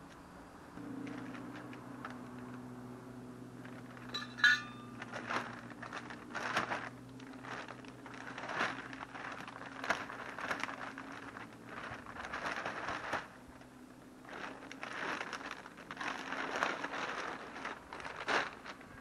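A plastic bag of garden soil crinkling and rustling in repeated bursts as soil is tipped out of it into a planting hole, with one sharp clink about four seconds in. A steady low hum runs underneath for most of the time.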